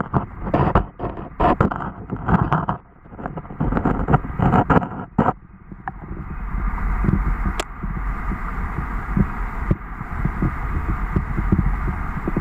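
Stream water heard from underwater: a muffled rumble with a low throb. Irregular knocks and clatters fill the first five seconds, then it settles into a steadier rushing.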